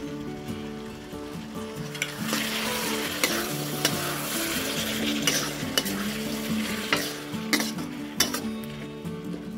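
Chicken pieces sizzling in hot oil in a wok while a metal spatula stirs them, scraping and clicking against the pan. The sizzle grows louder from about two seconds in, with a click every second or so.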